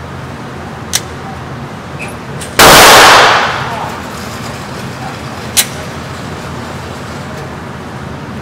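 A single loud handgun shot a little over two and a half seconds in, overloading the recording and echoing off the indoor range for about a second. Two short, fainter sharp cracks come about a second in and just past five seconds.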